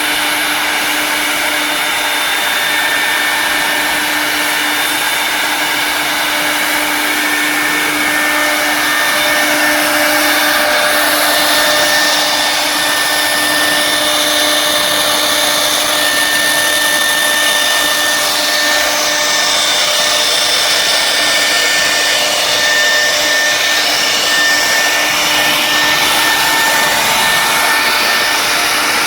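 Air-cooled spindles of a double-head wood CNC router running, a steady whine over a loud rushing noise.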